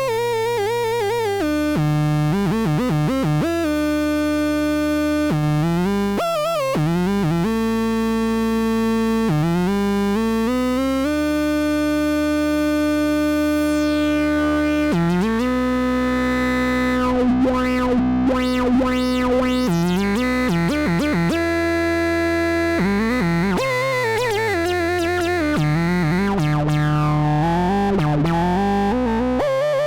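Dreadbox Hades analog synthesizer playing held notes that slide in pitch from one to the next. A bright filter sweep falls away around the middle, and the tone wobbles with vibrato-like modulation in the second half.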